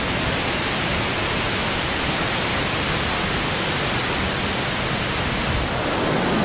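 Waterfall rushing: a loud, steady hiss of falling water with no let-up.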